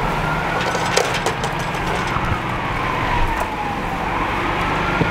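Siren of an approaching emergency vehicle wailing, its pitch sliding slowly down and then rising again near the end, over the steady low drone of an engine. A few sharp knocks sound about a second in.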